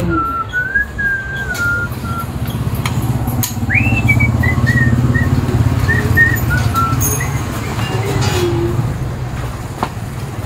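An engine running steadily in the background, swelling a little about four seconds in, while a person whistles short wandering phrases of a tune over it. A faint click near the end.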